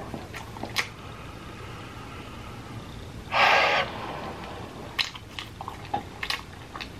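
Close-miked chewing of a mouthful of burger: soft wet mouth clicks and smacks, with a short loud hiss about three and a half seconds in.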